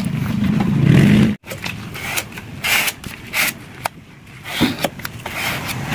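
Sandpaper rubbed by hand over the body panel of an old Mitsubishi Canter truck cab, giving a series of short, uneven scraping strokes. Before them, a low drone is the loudest sound and cuts off abruptly about a second and a half in.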